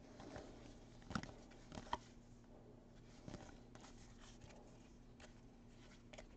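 Faint soft clicks and rustles of baseball trading cards being slid and flipped through by hand, a few light ticks over a low steady hum.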